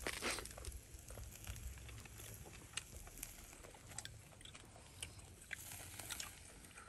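Faint, scattered small clicks and crackles over a steady low rumble.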